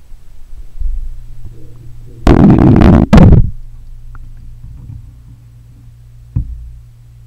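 Muffled, boomy sound picked up by a camera microphone under bathwater: a low rumble, then a loud, distorted rush of churning water about two seconds in that lasts about a second with a brief break, and a single sharp knock near the end.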